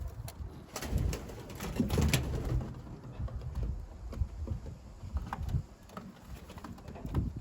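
Racing pigeons cooing, with scattered short sharp splashes from birds bathing in their water.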